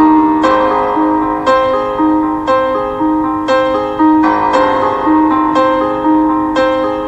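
Background piano music: a slow, gentle melody of struck notes and chords, a new one about every half second to a second, each fading away.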